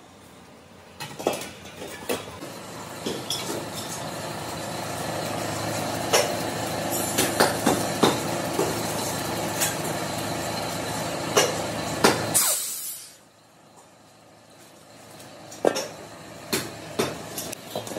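Compressed air running through a hose into a steel LPG cylinder under water for a leak test: a steady hiss and hum with metal clinks. About twelve seconds in, a short sharp blast of air as the line is released, then the noise drops, and the steel cylinders clank as they are set down near the end.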